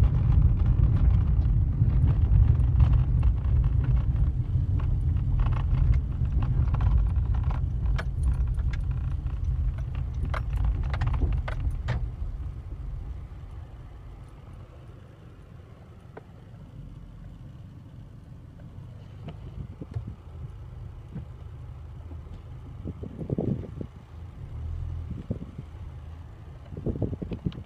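Low road rumble heard inside a car driving over a rough rural road, with light clicking and rattling. About twelve seconds in, the rumble fades as the car slows to a stop, leaving a low steady hum with a few faint knocks.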